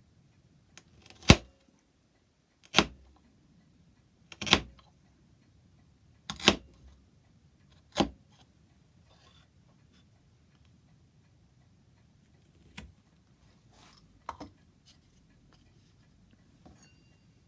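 Mallet striking a chisel to chop out dovetails in oak: five sharp knocks about a second and a half apart, then a few lighter taps near the end.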